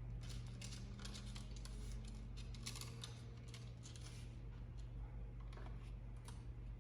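Faint, irregular rapid clicking and scratching over a steady low hum.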